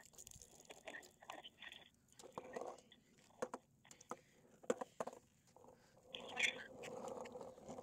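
Faint crunching, rustling and scattered sharp clicks, handling noise heard over a speakerphone call.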